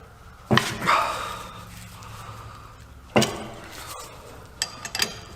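Steel tools and parts clanking and clinking together, a few separate sharp knocks with a short metallic ring, the loudest about half a second and three seconds in, with a quick pair near the end.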